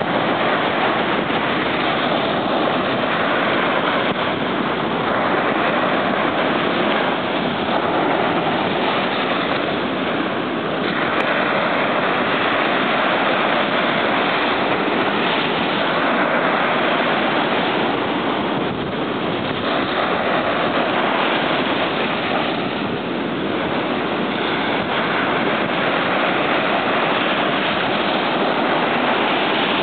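Surf washing on a beach together with wind on the microphone: a steady rushing noise that swells and eases slowly.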